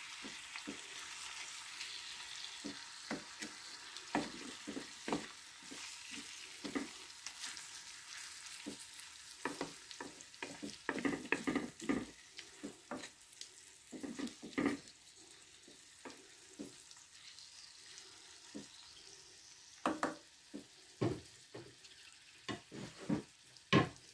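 Cubes of meat and chopped onion sizzling gently in oil in a clay tagine over a low flame, with a wooden spoon stirring and scraping against the clay in short strokes. The sizzle is a soft steady hiss, strongest in the first several seconds; the spoon's scrapes and knocks come in clusters, busiest midway and near the end.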